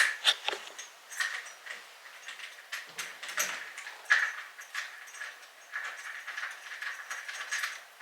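Light clicks and taps of door lever-handle hardware being handled and lined up on the door, with a thin high whine holding through the second half.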